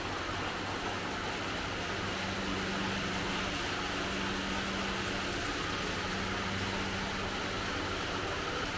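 Steady machine hum over a constant rushing noise, with no clear starts or stops.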